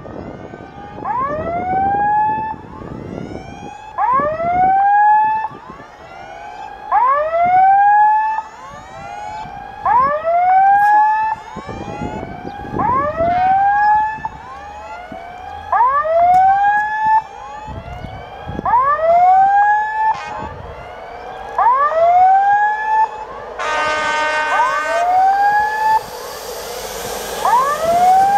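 Level-crossing warning signal sounding a repeated rising electronic whoop about once every 1.3 seconds, warning that a train is approaching. In the last few seconds a steady multi-tone sound and the growing noise of the oncoming electric train join it.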